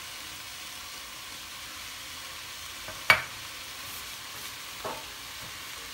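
Cauliflower and mixed vegetables sizzling steadily in a hot stainless steel pan, freshly dressed with soy and oyster sauce. A single sharp knock about three seconds in, and a fainter one near the end.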